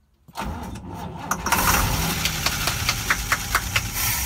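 1965 Clark Cortez motorhome engine cranking on its starter, beginning just after the start and going on for several seconds, with irregular knocks, without settling into an idle. It is a cold start with the choke not pulled, which the owners later see as why it would not start on its own.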